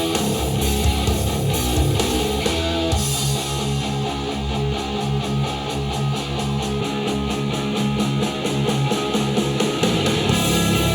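Rock music with electric guitars and strong bass, played back through a pair of powered bookshelf speakers and picked up by room microphones. The arrangement changes about three seconds in.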